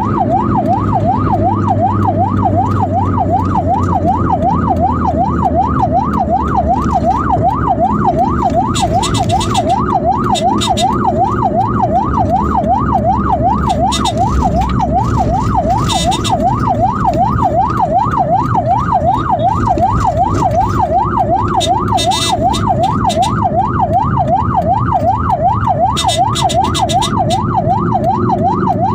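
Ambulance siren in a fast yelp, its pitch sweeping up and down about two to three times a second without a break, over the low rumble of the moving vehicle.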